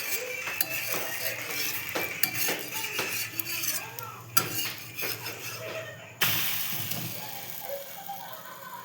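A metal spoon clinks and scrapes in a cooking pan while stirring. About six seconds in, a sudden sizzle starts, as of something going into hot fat, and fades over a couple of seconds.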